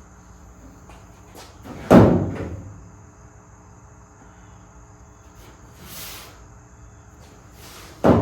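Chevelle's steel trunk lid slammed shut twice, about six seconds apart, each a loud metallic bang with a short ringing tail, closed to check the lid's fit.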